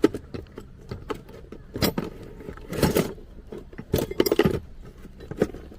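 Irregular metallic clinks and knocks of hand tools and metal parts being handled during work on a car, with a louder cluster of clatter about four seconds in.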